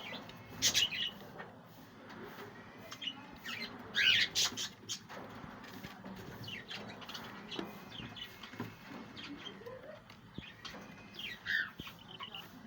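Budgerigars calling in short, high chirps, the loudest near one second and about four seconds in, and again near the end.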